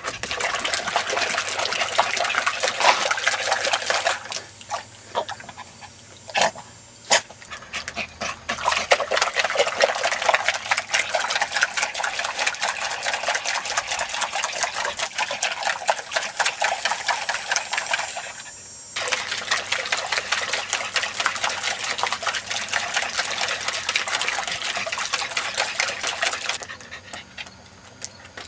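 A Yorkshire terrier pawing and splashing water in a plastic bucket, in rapid, continuous splashes. The splashing comes in long bouts, breaks off for a few seconds about four seconds in with a couple of sharp knocks, and dies down near the end.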